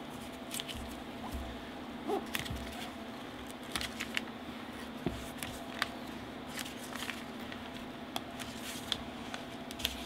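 Protective plastic film being peeled off an acrylic sheet by hand: scattered crackles and crinkles as the film pulls away, over a steady low hum.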